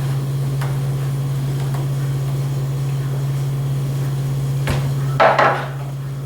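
Light taps and knocks from handling the laptop's screen parts over a steady low electrical hum, with a brief louder clatter about five seconds in.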